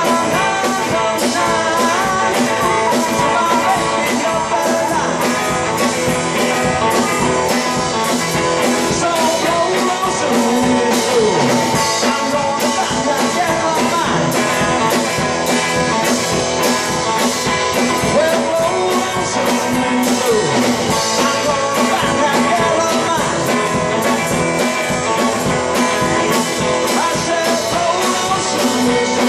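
Live blues band playing: electric guitar over a steady drum-kit beat.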